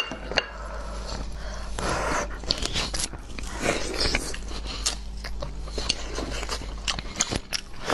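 Biting and chewing into the skin of a braised pork knuckle, a run of irregular mouth noises with scattered sharp clicks.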